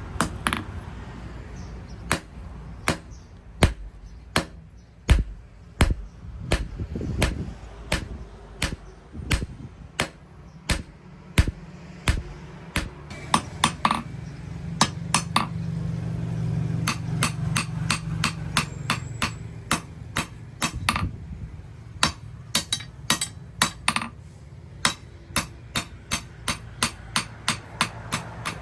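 Hammer blows on steel rebar over an anvil, hand forging: sharp ringing strikes at an irregular pace of about one to three a second, coming in quicker runs near the end. A steady low hum swells in the middle.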